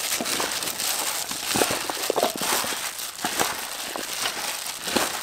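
A thin plastic glove crinkling and wet shredded cabbage and cucumber rustling as a salad is tossed by hand and wooden spoon in a stainless steel bowl, with many small irregular clicks.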